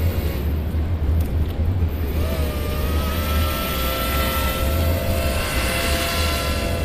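Four-motor RC air boat's electric motors and propellers whining. The pitch rises about two seconds in as the boat speeds up, then holds steady over a constant low rumble.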